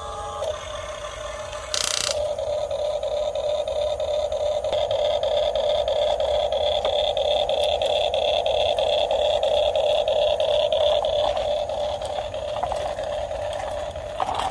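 Radio-controlled excavator running, a steady mechanical whine from its motor and drive. The whine comes in louder with a short burst just before two seconds in.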